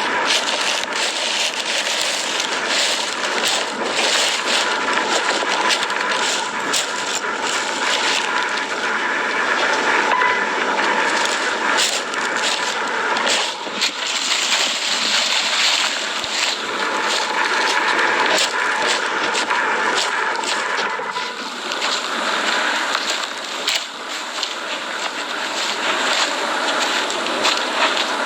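Steady rushing, hissing noise from underground near a lava flow, laced with crackles, which the uploader takes for a lot of steam or other gases being pushed to the surface.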